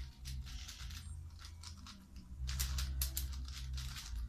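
Speed-cube puzzles turned rapidly by hand: a quick run of plastic clicks and rattles, denser from about halfway through, over a steady low hum.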